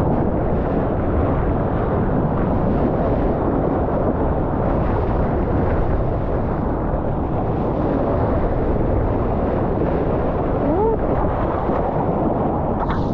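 Wind and churning seawater buffeting the microphone of an action camera mounted low on a surfboard riding a wave: a steady, loud, low rushing noise.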